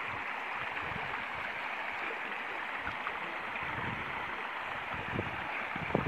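Small stream running over rocks: a steady rush of water.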